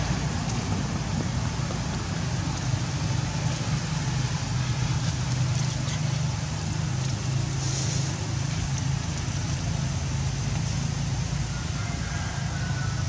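Steady low rumble and hiss of outdoor background noise, even throughout, with no distinct event standing out.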